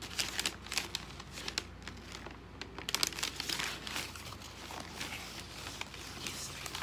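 Packing material crinkling and rustling in irregular handfuls as a shipped plant box is unpacked by hand, with a louder flurry about three seconds in.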